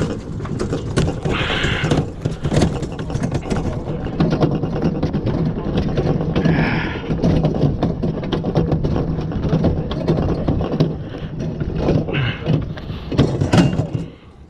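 A refrigerator being wheeled on a hand truck: a loud, continuous rolling rumble with scraping and repeated knocks and clatter as the load is bumped along. It drops away just before the end.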